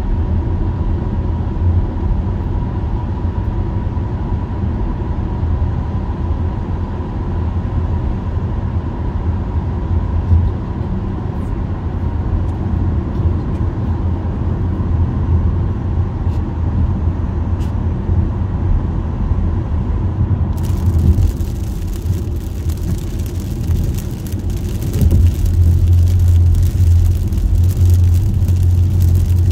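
Steady low road and engine rumble heard inside a moving car, with a faint steady whine while it is in the tunnel. About 21 seconds in, the whine stops and a hiss of rain and tyres on the wet road suddenly joins as the car comes out of the tunnel. The rumble grows louder a few seconds later.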